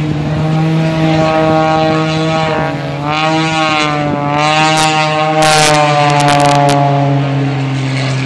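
Single-engine aerobatic propeller plane flying low past, its engine and propeller drone rising in pitch as it closes in and then sliding steadily down as it passes and pulls away, over a steady low hum.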